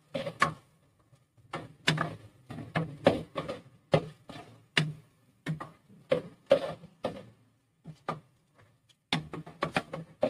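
A spatula scraping and knocking against a non-stick pot as chicken liver pieces are stirred and fried with ginger-garlic paste: irregular strokes about two a second, with a short pause a little past halfway.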